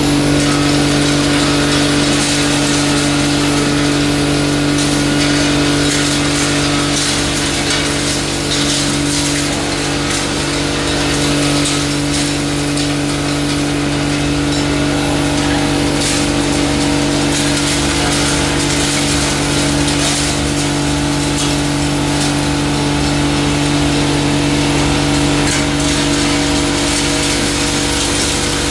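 Belt-driven double-chamber hammer mill pulverizer running steadily while dried turmeric is fed into its hopper and ground: a constant low machine hum with a dense grinding noise over it.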